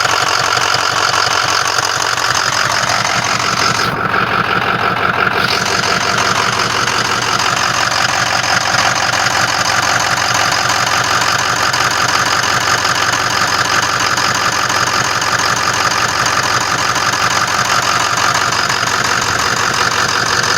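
Ford 6.0-litre Power Stroke V8 turbodiesel idling steadily with an even diesel clatter. About four seconds in, the sound is briefly muffled for a second or so.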